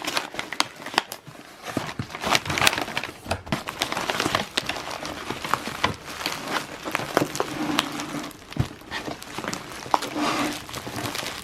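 Shipping packaging crinkling and rustling with many small clicks and knocks as a houseplant is unpacked from its box.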